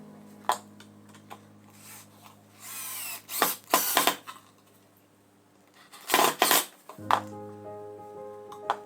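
Short workshop noises from building a rowing machine: a few sharp knocks and clinks, then a brief scrape and two louder rasping bursts about halfway through. Background music pauses while these sounds are heard, then comes back near the end.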